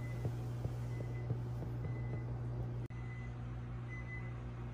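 A steady low hum with a short, high electronic beep repeating about once a second. There are a few light clicks in the first two seconds, and the sound drops out briefly about three seconds in.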